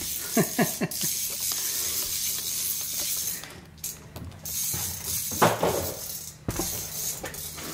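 Small metal clicks and clinks of bolts and a wrench being worked on solar rail hardware, over a steady hiss.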